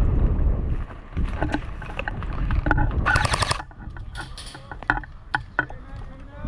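Wind buffeting the microphone for about the first second, then scattered sharp clicks and a short, rapid rattle of about half a second midway.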